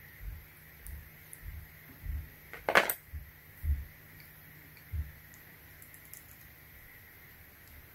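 Metal snap ring pliers being handled: dull knocks and small metallic clinks, with one loud sharp clack a little under three seconds in.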